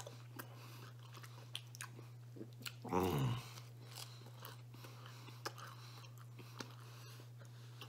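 A man chewing pizza crust with his mouth close to the microphone: a run of small crunching and smacking clicks, with a brief vocal sound about three seconds in.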